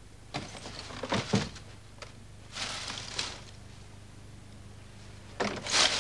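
A few brief scraping and knocking noises, with a couple of thuds about a second in, a hissing scrape about halfway, and louder scrapes near the end.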